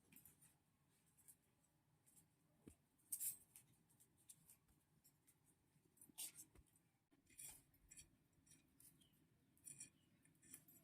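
Faint, scattered rustling and small snaps of leafy greens being picked over and sorted by hand, with a few sharper clicks.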